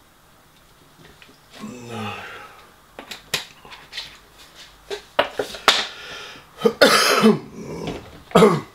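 A man coughs loudly twice near the end. Before that come a low vocal sound falling in pitch about two seconds in, and a run of small clicks and crinkles while he handles a small packet.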